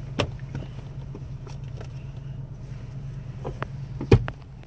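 Steady low hum of a car heard from inside the cabin, with scattered small clicks and taps from handling a card and glove-box contents, and one louder knock about four seconds in.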